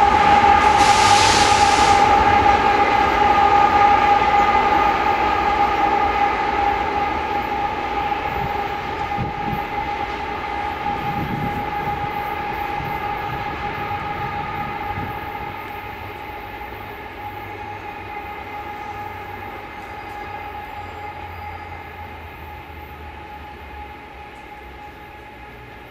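Diesel locomotives at the tail of a BNSF double-stack freight train passing close and then running away into the distance. A steady high whine carries through and the whole sound fades evenly, with a short burst of hiss about a second in.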